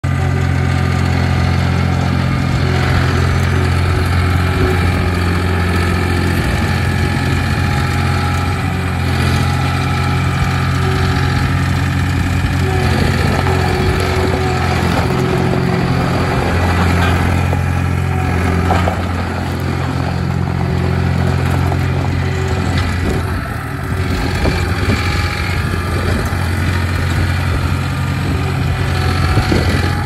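Turbocharged diesel engine of a New Holland LX885 Turbo skid steer running steadily, its note shifting a few times as the engine speed changes.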